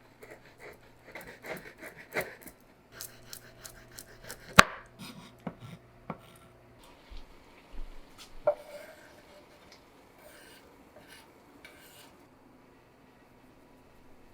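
Kitchen handwork: chopping and scraping, with dishes and utensils knocking and clinking. A sharp knock comes about four and a half seconds in and a ringing clink about eight and a half seconds in, then it goes quiet.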